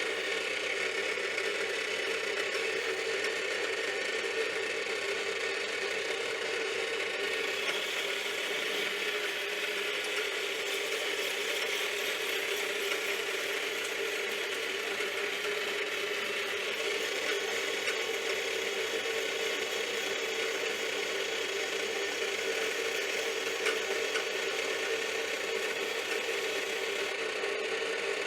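Metal lathe running steadily with a constant geared whine, its spindle turning a steel workpiece while the inside is skimmed.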